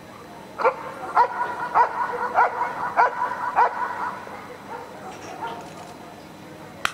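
Dog whining in a run of high, pitched yelps, about six of them roughly every half second, while it grips and tugs a protection-training bite sleeve; the yelps fade out after about four seconds.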